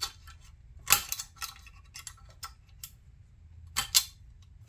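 Flat-blade screwdriver prying at a clip that holds power MOSFETs against the metal chassis, giving light scrapes and ticks with sharp metallic clicks about a second in and twice near the end.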